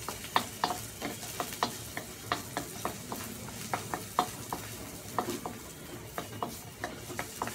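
Wooden spatula scraping and knocking against a stainless steel wok as chopped garlic and shallots are stir-fried in hot oil: sharp irregular clicks, a few a second, over a light sizzle.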